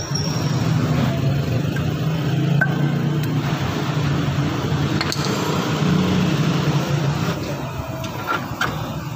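A few separate sharp metal taps from a hammer seating the grease seal into a front wheel hub, over a steady low drone of a vehicle engine running in the shop.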